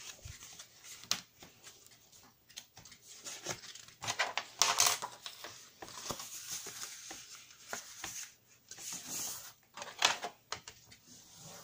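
Paper and card being handled and pressed together on a table, with irregular rustling, scraping and light taps.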